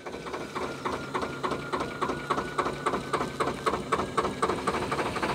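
Air-cooled Lister diesel engine ticking over on a narrowboat, a steady rhythmic clatter of about six beats a second over a low hum.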